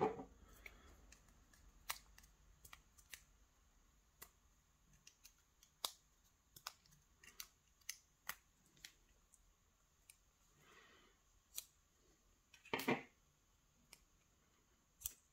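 Faint, scattered metal clicks and ticks of needle-nose pliers working at the pins and wafers of a disassembled Bricard Supersureté lock cylinder, with a short scrape near the end.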